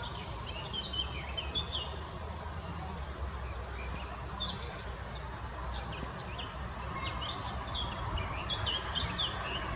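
Several small birds chirping and singing in quick, overlapping calls, over a steady low rumble.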